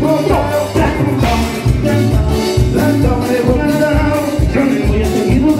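Live band dance music through PA loudspeakers, loud and continuous, with a steady bass beat under a melody line.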